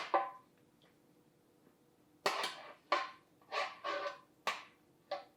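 Kitchen utensils and dishes clattering against a pan: two sharp knocks at the start, then a run of short knocks and scrapes from about two seconds in, some of them ringing briefly.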